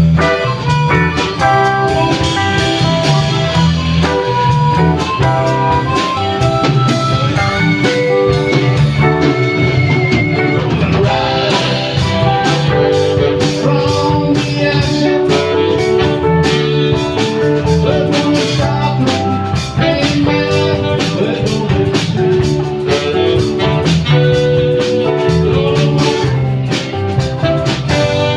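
Live blues-rock band playing an instrumental passage: guitar lines over bass and drums.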